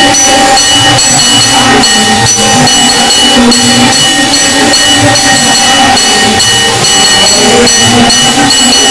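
Temple bells and metal percussion clanging rapidly and without pause during an aarti, a loud, dense din of ringing metal struck over and over.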